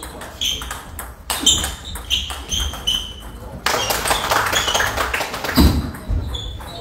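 Table tennis ball being struck by paddles and bouncing on the table, a sharp ringing click roughly every half second to second. Then comes a longer stretch of rustling noise, and a loud low thud close by about five and a half seconds in.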